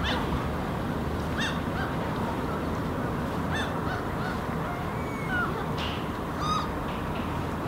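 Several short crow calls over a steady low city traffic rumble, the strongest call near the end.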